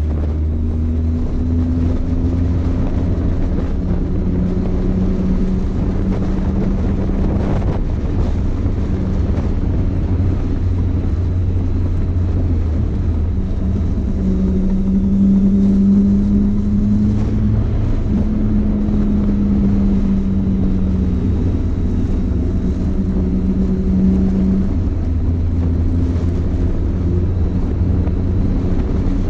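Motorcycle engine running at road speed on a country lane, its note rising and easing gently with the throttle and a little louder for a stretch in the middle, with wind rumbling on the microphone.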